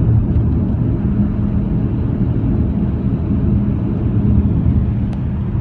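Steady low road and engine rumble heard inside a Jeep's cabin while cruising at motorway speed. A faint click comes about five seconds in.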